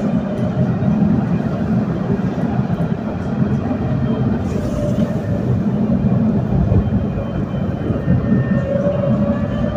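Alstom Citadis tram running, with a steady rumble of wheels on rail and a faint whine from the traction motors that rises slightly in pitch near the end.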